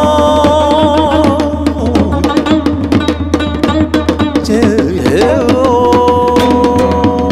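Accompanying music for a Korean dance piece: a wavering melody line over a low drone and dense, quick hand-drum strokes. About five seconds in, the melody slides around and then settles into a long held note.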